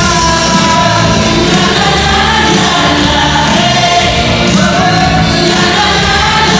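Live pop performance: several male voices singing together into microphones over a loud backing track.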